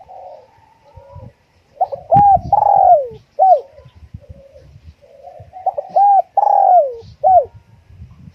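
Spotted dove cooing: two phrases about four seconds apart, each a few soft notes then three loud arched coos, the middle one longest and falling in pitch at its end. Faint low knocks sound underneath.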